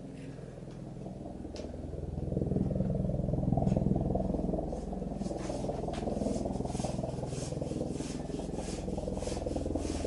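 Pile brush strip being slid along the channel of an aluminium screen housing: a continuous low scraping rub that grows louder about two seconds in, with a few light clicks.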